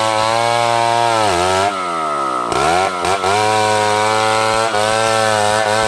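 Two-stroke chainsaw running at high revs while sawing a large hardwood log. The engine speed sags briefly a little over a second in, then drops sharply about two and a half seconds in and climbs straight back to full speed.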